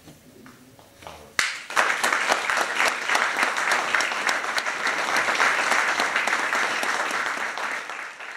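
Theatre audience applauding, breaking out suddenly about a second and a half in after the last orchestral chord has died away, a dense steady clapping that fades near the end.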